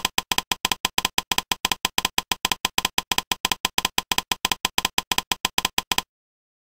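Typing-style sound effect: a fast, even run of short clicks, about seven a second, that ticks along as on-screen text is highlighted letter by letter and cuts off suddenly about six seconds in.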